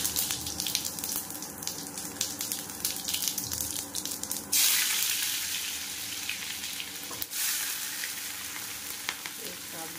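Cumin seeds crackling in hot oil in a kadhai. About four and a half seconds in, chopped onion and aromatics go into the pan and the oil sizzles loudly, then slowly quietens.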